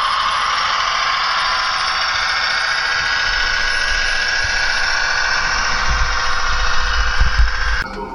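OO gauge model train running on the layout, giving a steady high-pitched squeal of wheels and motor, with some low rumbling in the second half. It cuts off abruptly just before the end.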